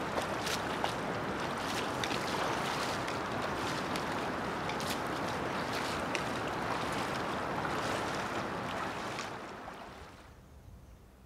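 Shallow, stony river water rushing and splashing, with frequent short, sharp splashes. It fades away about ten seconds in, leaving only a faint outdoor hush.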